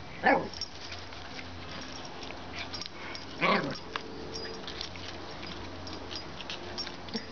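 A small dog barking twice at a husky puppy during play: two short barks about three seconds apart, each dropping in pitch.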